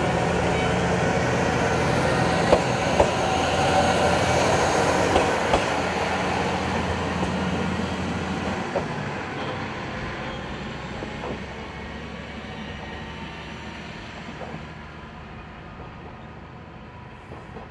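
A Tenryu Hamanako Railway single-car diesel railcar pulling away, its diesel engine running steadily with a few sharp clicks from the wheels over rail joints in the first seconds. The engine note drops about nine seconds in, and the sound fades steadily as the car recedes.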